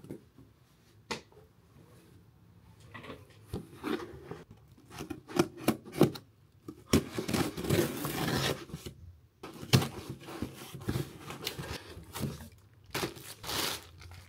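A cardboard box being handled and opened: knocks as it is set down and moved, a blade cutting the packing tape, and cardboard flaps ripping and rustling, longest about halfway through. Near the end a plastic bag crinkles as the contents are pulled out.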